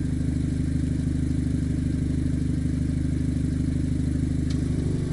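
Steady low mechanical hum from a VW Golf GTI fitted with Accuair air suspension, running as calibration of the suspension begins. A faint click about four and a half seconds in.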